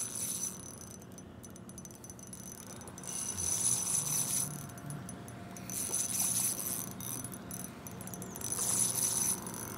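Fishing reel being cranked in short spells, a light metallic whirr that swells three times, as a hooked fish is wound in to the bank.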